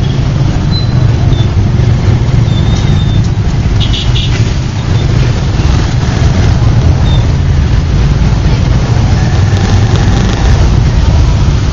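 Steady low rumble of the motorcycle carrying the camera, running through slow, crowded city traffic, mixed with the engines of the vehicles around it. A few short high-pitched chirps come in the first few seconds.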